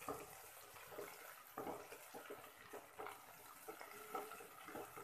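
Sliced onions, green chillies and mint frying in oil in a pan, a faint steady sizzle, with a wooden spatula scraping and stirring them a few times.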